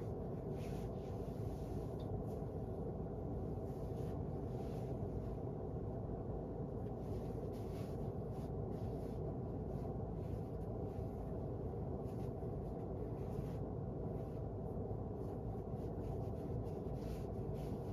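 Steady low room hum, with faint short rustles scattered through it.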